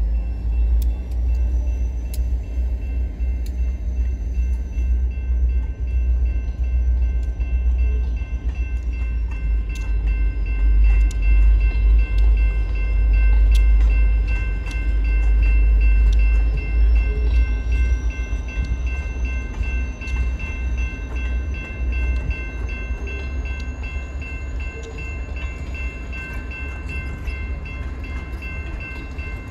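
Passenger coaches of a train rolling slowly past. There is a steady low rumble with scattered clicks of the wheels on the rails, and a thin, steady high-pitched whine throughout.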